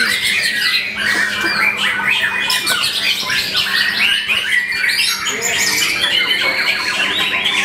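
White-rumped shama (murai batu) in full song: a dense, unbroken stream of varied whistles, chirps and rapid trills.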